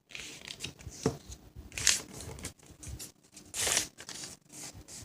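A sheet of paper being folded and creased by hand: rustling, with sharper swishes of the paper about two seconds in and again near four seconds.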